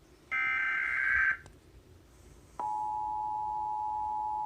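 Emergency Alert System activation: a roughly one-second burst of the SAME header's warbling digital data tones, a short gap, then the EAS two-tone attention signal (853 and 960 Hz together) starting abruptly about halfway through and holding steady.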